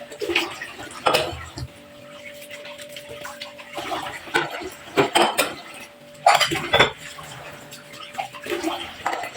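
Dishes and cutlery clinking and clattering as they are handled, in irregular sharp knocks; the loudest cluster comes about six and a half seconds in.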